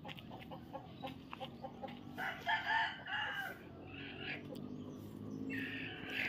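Village chickens clucking in short, rapid notes, with a loud rooster crow about two seconds in and another loud call near the end.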